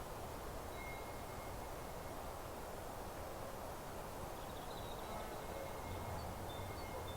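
Meadow ambience: a steady soft rustle of wind through grass and leaves, with faint, high, thin bird calls now and then.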